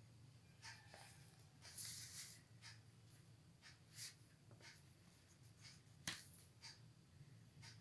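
Faint scratching of a pen drawing on paper in short strokes, with a sharp tap about six seconds in, over a low steady hum.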